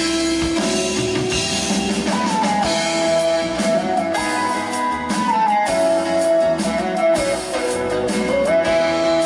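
A live pop band playing an instrumental passage: a lead line of long held notes that slide from one pitch to the next, over guitar and drum kit.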